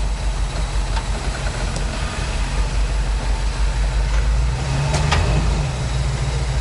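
Rock-crawling 4x4's engine running low and steady as the vehicle crawls over rock, with a few sharp knocks, about one second in and around five seconds in.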